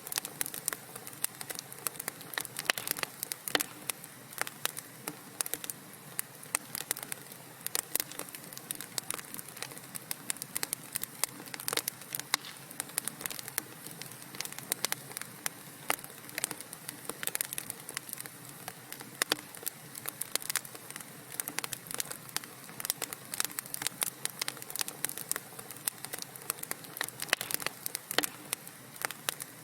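Wood fire burning in a fireplace, crackling: dense, irregular sharp pops and snaps over a soft steady hiss.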